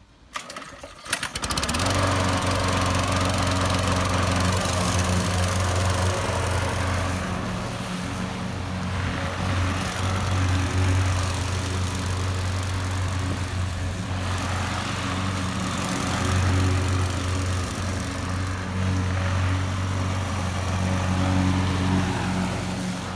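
Gas-powered walk-behind lawn mower engine sputtering into life about a second and a half in, then running steadily as the mower is pushed through grass.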